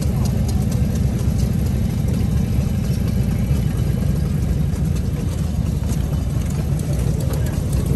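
Fuji Rabbit scooter's FE52 air-cooled single-cylinder engine idling steadily with a low, even rumble.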